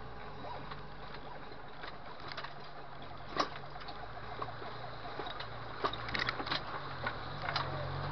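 Off-road vehicle wading up a shallow stream: a steady low motor drone that swells and eases, with water sloshing and a few sharp knocks, the loudest about three and a half seconds in and a cluster around six seconds.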